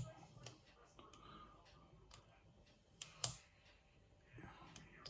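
Lock pick working the pins of a challenge lock: a few faint, irregular metal clicks and ticks, with one sharper click about three seconds in.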